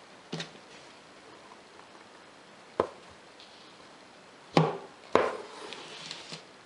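Sharp knocks from an embroidery frame being handled and tipped against the table: four hard taps, the loudest two about half a second apart a little past halfway. They are followed by a short rustle of satin ribbon being drawn through the fabric.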